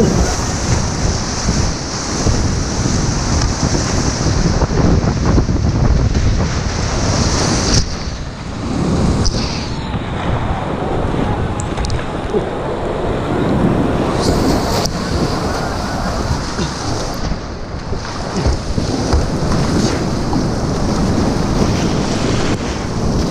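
Whitewater rapids rushing and splashing around a kayak, with wind buffeting the microphone. The sound dulls for a few seconds about ten seconds in, as water washes over the camera.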